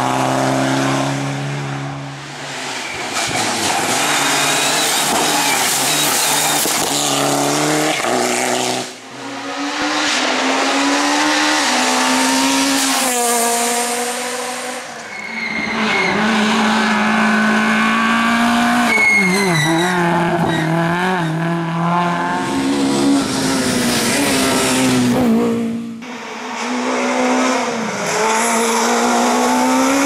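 Rally cars driving hard past at speed, several in turn. Their engines rev up and drop back through gear changes, with tyre squeal in the corners.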